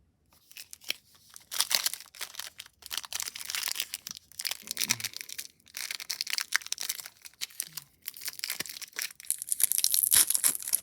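Foil trading-card pack wrapper being torn open and crinkled by hand: a dense, irregular run of crackles and rips that gets louder near the end.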